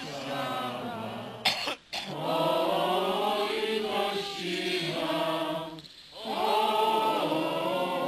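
A crowd of mourners singing a hymn together, with a brief break between phrases about six seconds in. A loud cough close to the microphone about a second and a half in.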